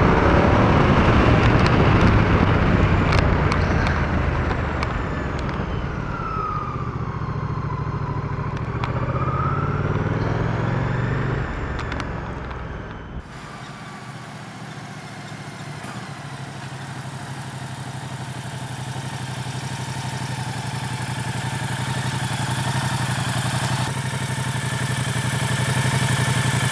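Moto Guzzi V100 Mandello's 1042 cc liquid-cooled 90° V-twin running under way, with wind rushing over the microphone. About halfway it changes suddenly to a quieter, steadier engine hum that grows louder toward the end.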